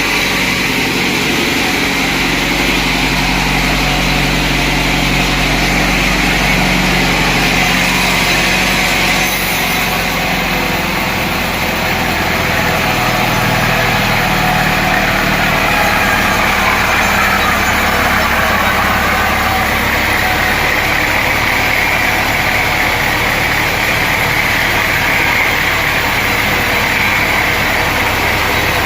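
Sawmill machinery running steadily: a motor's hum under a constant saw noise, with the low hum shifting pitch a few times.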